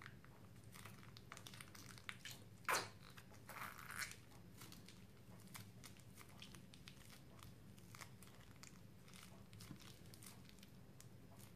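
Small plastic sachet crinkling in the hands, with one sharp tear about three seconds in as it is ripped open. Soft, scattered crinkles follow as its contents are squeezed out onto slime.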